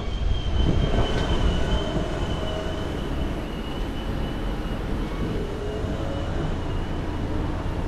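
City street traffic rumble under a long, steady, high-pitched squeal that wavers slightly and fades out near the end.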